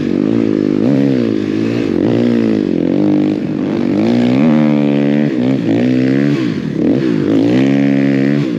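Snowbike engine running under riding load, its pitch rising and falling over and over as the throttle is worked.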